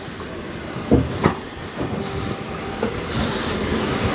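Steam locomotive 60163 Tornado, a Peppercorn A1 Pacific, hissing steam, the hiss growing louder, with two sharp metallic knocks about a second in.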